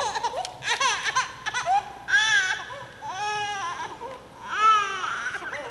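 Infant crying in three short, high wails that rise and fall, just after the baptismal water has been poured over her head.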